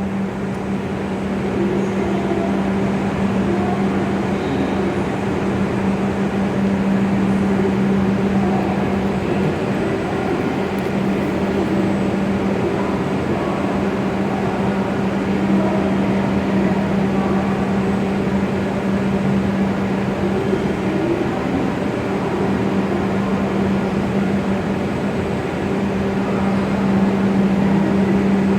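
W7 series Shinkansen train at the platform: a steady rumbling run with a constant low hum. The hum weakens through the middle and grows strong again near the end.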